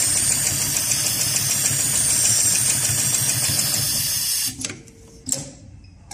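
Heavy-duty automatic pattern sewing machine stitching thick nylon webbing at a rapid, even rhythm; it stops about four and a half seconds in, followed by two short knocks.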